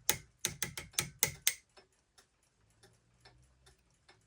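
Sharp metal clicks and taps, about eight in the first second and a half, as the hands are worked off a Kienzle clock movement; then faint, steady clock ticking, about two to three ticks a second.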